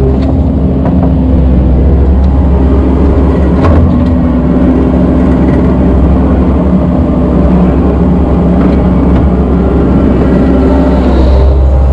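Kubota skid steer's diesel engine running steadily at working speed while spreading sand. There is a single knock about four seconds in.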